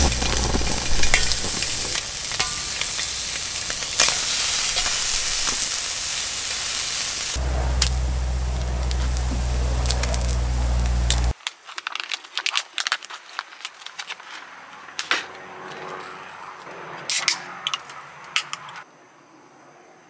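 Food sizzling as it cooks: a loud, dense sizzle that drops sharply about eleven seconds in to a quieter sizzle with scattered pops and crackles.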